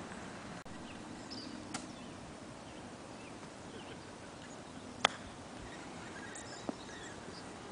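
A golf club striking the ball on a short chip shot from the rough: one sharp, crisp click about five seconds in, over a faint steady outdoor background.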